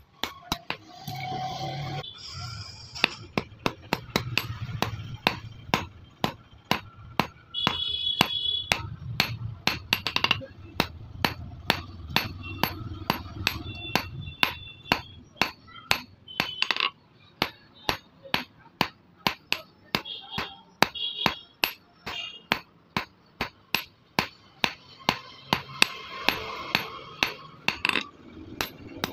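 Hand hammer striking red-hot steel held in tongs on a steel anvil block, a steady run of sharp metal blows about two a second as the piece is forged.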